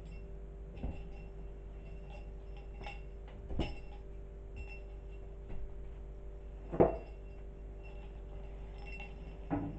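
Scattered light clicks and knocks from a kitten playing with a feather-and-pompom wand toy on a bed, the loudest about seven seconds in, over a steady hum.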